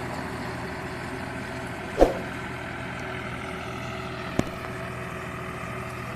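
John Deere tractor's diesel engine running steadily at a low level. A thump comes about two seconds in and a short sharp click about four and a half seconds in.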